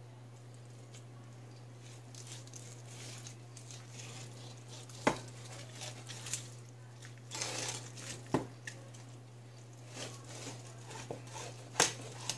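Knife and fingers working cooked pork spare ribs on a ceramic plate: soft tearing and rustling of the meat, with a few sharp clicks of the knife against the plate about five, eight and twelve seconds in. A steady low hum runs underneath.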